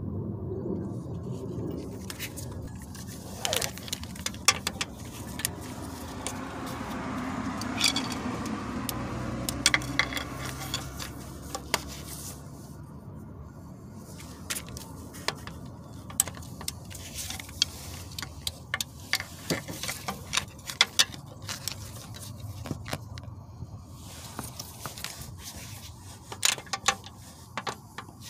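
Hand ratchet clicking in short runs, mixed with metal tools clinking and scraping, as the 18 mm flywheel-to-torque-converter bolts are undone with a pry bar holding the flywheel.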